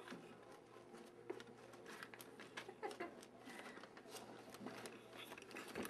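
Faint rustling and crinkling with scattered small clicks, from week-old Labrador retriever puppies moving about and being handled.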